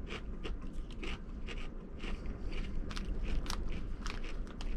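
Close-up crunching and chewing of Fritos Chili Cheese corn chips, a run of quick sharp crackles several times a second.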